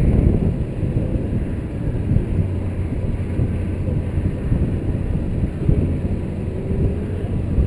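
Wind buffeting the microphone of a camera mounted on the outside of the car, in gusty low rumbles, over a faint steady hum from the MK3 Golf's 2.0-litre ABA four-cylinder idling.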